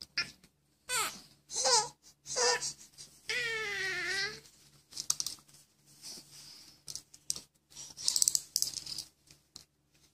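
Babies babbling and squealing in short, high, falling cries, with one long wavering wail about three to four and a half seconds in, followed by breathy squeals and small clicks.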